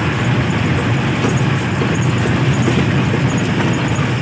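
Steady rumble inside a moving truck's cab at highway speed: engine and road noise, deep and continuous.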